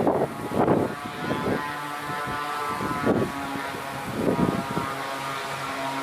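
Christy 7186 FC hovercraft's thrust engine and propeller running with a steady drone, heard from shore. Gusts of strong wind hit the microphone several times.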